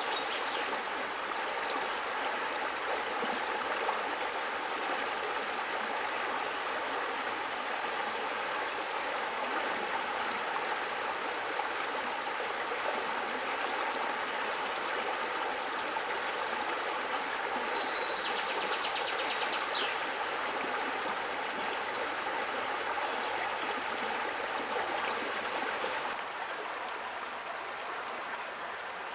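Steady rush of a flowing stream. About three seconds from the end the water grows a little quieter and a few short, high bird chirps come in.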